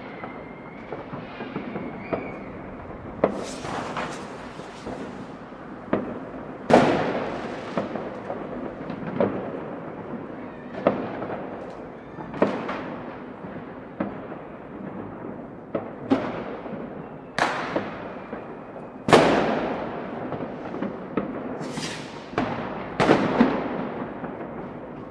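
New Year's Eve fireworks: rockets and firecrackers going off in irregular, echoing bangs over a constant background crackle of more distant explosions. The two loudest bangs come about seven seconds in and near the middle. A faint whistle is heard in the first two seconds.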